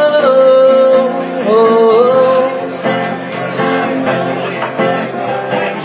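Strummed acoustic guitar with a man's voice holding a long wordless sung note that slides to a new pitch about a second and a half in, as the guitar strumming carries on.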